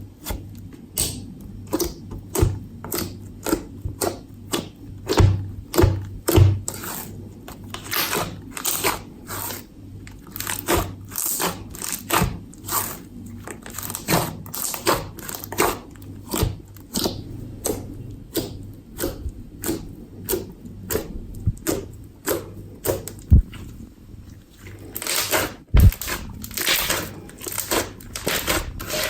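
Slime-making handling sounds: an irregular run of sticky clicks and crackles, about two to three a second, with a faint low hum under the first few seconds.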